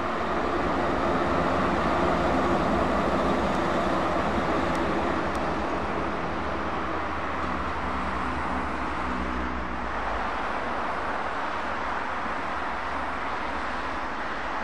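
Heavy diesel tipper trucks driving past on the road: engines running and tyre noise. The sound is loudest about two seconds in and eases after about ten seconds.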